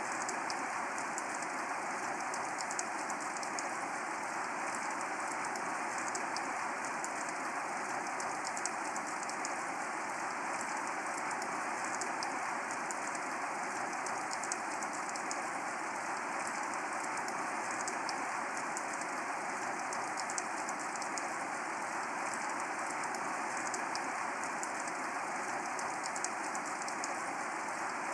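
Steady rain falling, an even hiss with many separate sharp drop hits through it, unchanging throughout.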